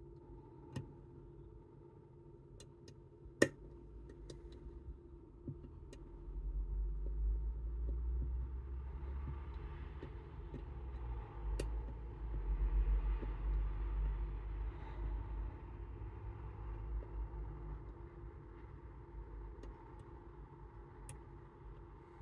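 Occasional sharp metal clicks from lock-picking tools working in a Chubb Detector lever lock, one much louder about three seconds in. A low rumble swells up after about six seconds and dies away again before the end.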